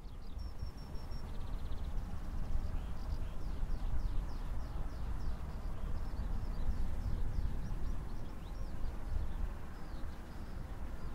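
A small songbird singing: a rapid series of short, high, downward-sweeping chirps, with a few even notes and a brief buzzy trill near the start. A low, fluttering rumble runs underneath.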